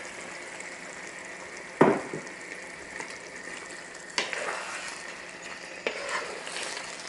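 Red curry paste and coconut milk sizzling steadily in a wok as pineapple chunks are stirred in with a wooden spatula, with three sharp knocks against the wok about two, four and six seconds in.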